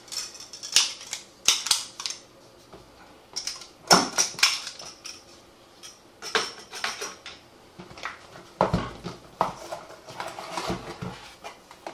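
Hands opening a sealed cardboard box: irregular scraping, rustling and tapping of cardboard, with a few sharp clicks.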